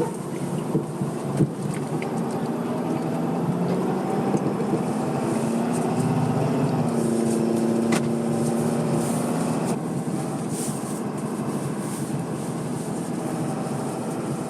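A vehicle driving on the road: engine and road noise, with the engine note climbing a little about five seconds in and then holding steady.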